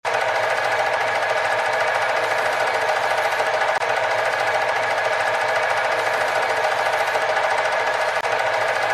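Film projector running: a steady, fast mechanical clatter, cutting out for a moment near the end.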